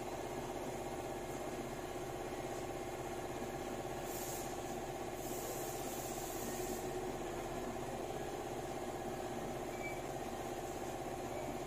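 Steady mechanical drone of a running motor or engine, even throughout, with brief hissing sounds about four and five-and-a-half seconds in.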